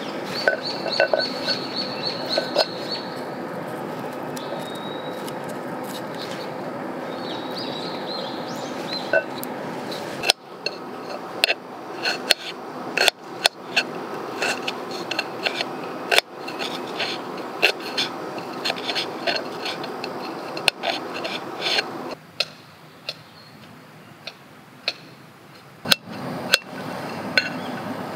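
A knife slicing and chopping garlic on a stainless steel frying pan, the blade tapping sharply against the metal in quick, irregular strokes, most of them from about ten seconds in.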